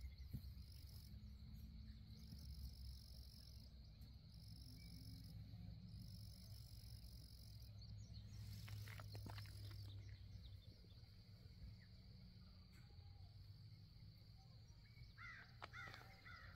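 Faint chorus of crickets and other insects, a steady high-pitched trill over a low background rumble. A bird chirps briefly near the end.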